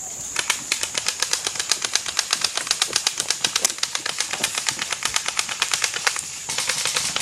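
Airsoft gun firing a long steady string of shots, sharp clicks at about eight a second, stopping about six and a half seconds in.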